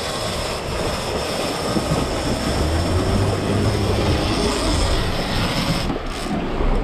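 Boat motoring through the sea: engine drone under a steady rush of water along the hull and wind, the low rumble growing stronger about three seconds in and easing briefly near the end.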